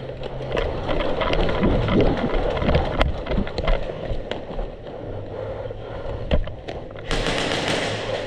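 Scraping and rubbing movement noise on the microphone with scattered sharp clicks, then a loud rush of wind on the microphone about seven seconds in.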